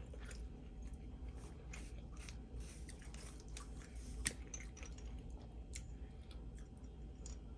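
Soft, close-up chewing and wet mouth sounds of someone eating spaghetti, a run of small faint clicks, with one sharper click a little past halfway.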